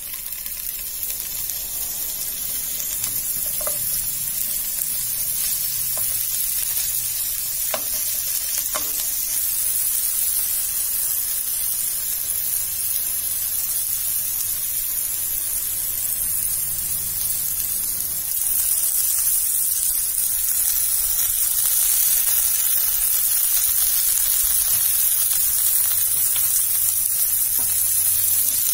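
Carrot sticks frying in hot oil in a nonstick pan: a steady sizzle, with a few light clicks in the first third, that grows a step louder about two-thirds of the way through.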